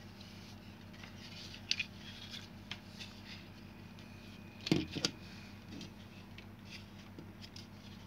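Plastic parts of a hair dryer's handle housing clicking and knocking as its switch button and wiring are fitted in by hand. A few faint clicks come early, then a louder pair of clicks a little past the middle, over a faint steady hum.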